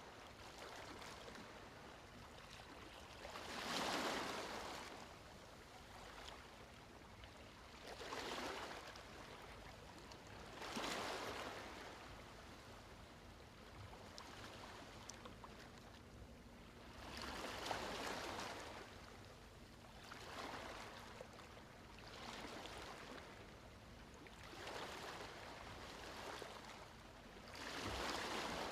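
Ocean waves washing in gently, a soft hiss of surf that swells and falls away every few seconds.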